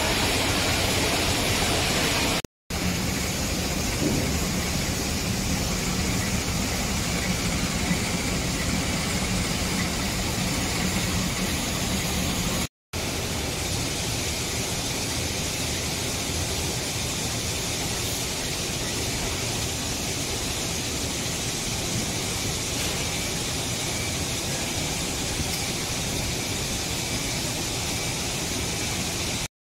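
Plastic film slitting and rewinding machinery running, a steady noisy hum. A low steady hum runs under it in the stretch between two brief dropouts.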